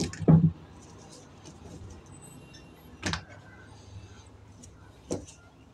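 Green chillies and a hand knocking against a red plastic toy dump truck as the chillies are loaded into its bed: one loud low thump about half a second in, then two sharp clicks later on.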